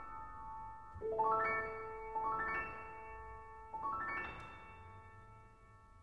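Solo piano playing three rolled chords, each spread quickly from low notes to high, then left to ring and fade away as the closing chords of the piece.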